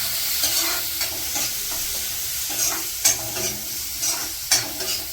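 Chopped onion frying in hot oil, sizzling steadily while a spatula stirs and scrapes it around the pan, with a couple of sharper knocks of the spatula against the pan.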